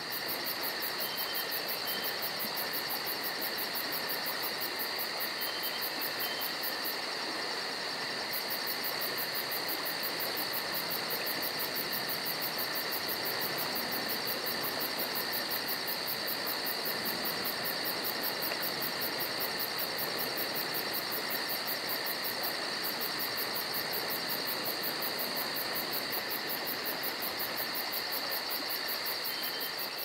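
Insect chorus, crickets trilling without pause: several steady high tones with a fast pulsing trill above them.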